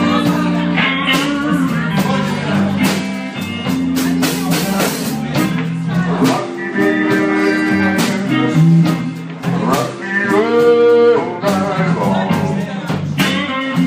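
Live band playing: a male vocalist sings into a microphone over electric guitar and a drum kit, with drum hits marking the beat.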